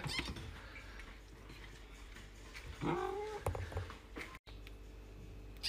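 Adult cat gives one short, rising yowl about three seconds in. Right at the end a newborn kitten starts a thin, high mew.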